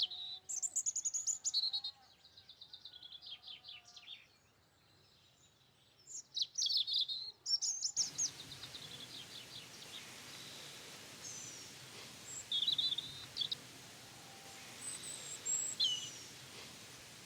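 Small birds singing and chirping in quick repeated phrases. About halfway through, a steady outdoor hiss comes up under them, with further scattered chirps and short whistles over it.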